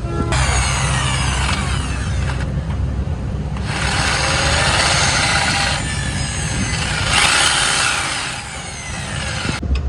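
Handheld power drill running in three bursts of a couple of seconds each, its pitch sliding as the speed changes, while it works a slipped bolt thread in an engine-mount bracket to take a threaded bush.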